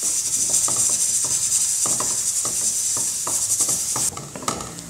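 Wooden spatula stirring and scraping diced raw banana in a nonstick frying pan, quick repeated strokes, over a steady sizzle of hot oil. The sizzle drops sharply about four seconds in.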